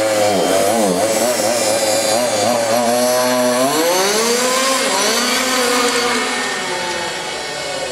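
Small nitro (glow-fuel) engine of a radio-controlled car, blipped in short revs, then climbing steeply in pitch as the car accelerates away. The pitch then slowly drops and the sound grows fainter near the end as the car moves off.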